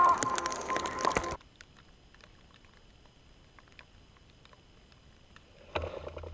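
Background music that cuts off abruptly about a second and a half in, leaving a faint hiss with small clicks. Near the end a ski racer passes the low-mounted camera at the gate, a short low whoosh of skis on snow.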